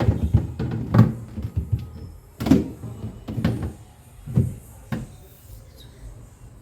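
Plastic fridge shelves and door bins being fitted back into a fridge: a series of knocks and clunks, about six in all, the loudest in the first three seconds.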